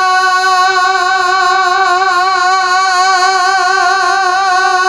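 A male naat reciter holding one long high sung note with vibrato, unbroken, into a microphone.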